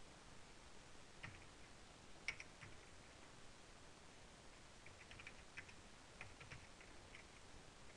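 Faint clicking of a computer keyboard being typed on: a few single keystrokes, then a quick run of keys about five seconds in.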